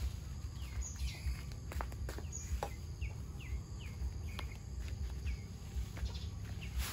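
Small birds chirping: a run of short falling chirps, several in quick succession through the middle, with a few sharp clicks over a steady low rumble.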